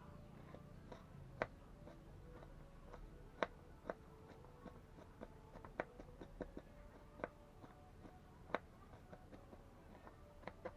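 Faint, irregular sharp clicks and taps, about one or two a second, a few of them louder.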